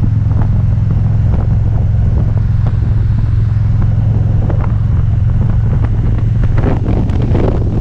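Touring motorcycle engine running steadily at cruising speed, a constant low drone, with wind buffeting the microphone that picks up near the end.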